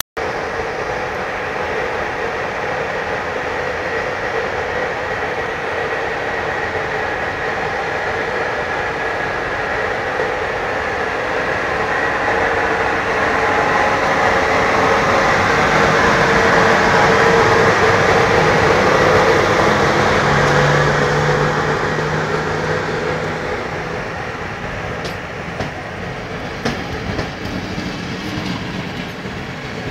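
CFR class 40 electric locomotive pulling away from a station and passing close by, running with a steady hum and whining tones that grow loudest about halfway through. Then passenger coaches roll past, with wheel clicks over the rail joints near the end.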